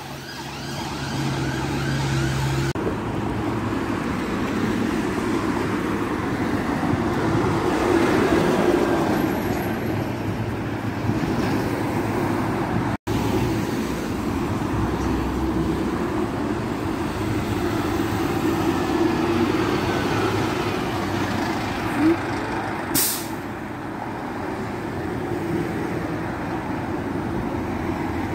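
Steady road traffic on a main road, cars and heavy vehicles including a fire engine running without its siren. About three-quarters of the way through there is one short hiss of an air brake.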